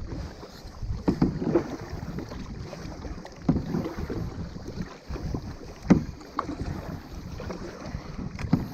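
Canoe paddles dipping and pulling through lake water, a short splash about every two seconds, with wind rumbling on the microphone.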